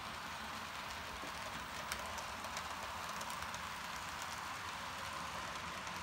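HO scale model train, a diesel locomotive pulling freight cars, running along the layout track: a steady, quiet whirring hiss with faint scattered ticks.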